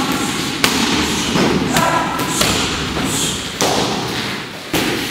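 Gloved strikes landing on Muay Thai pads: about five heavy smacking thumps, roughly a second apart.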